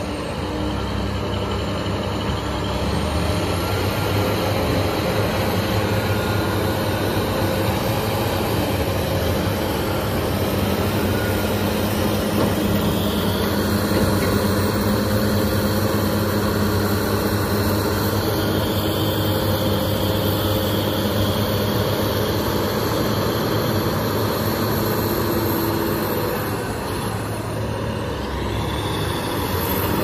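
Heavy diesel engines of a BEML crawler bulldozer and a BEML BE1000 hydraulic excavator working, a steady drone that eases briefly near the end and then picks up again.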